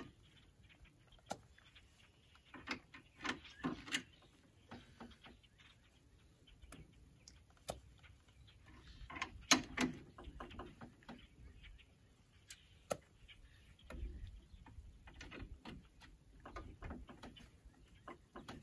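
Scattered clicks and clacks of hydraulic quick-connect couplers being hooked up by hand on a Yanmar YL210 front loader's lines: sleeves pulled back and hose ends pushed in until they seat, with the loudest clack about halfway through.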